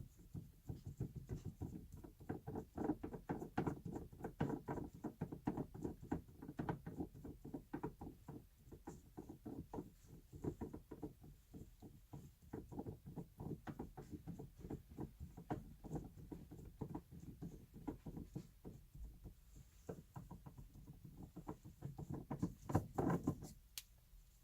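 Hands twisting a leather stock shift knob to unscrew it from the shift lever: a long run of faint, irregular rubbing and clicking sounds, several a second, with a louder cluster shortly before the end.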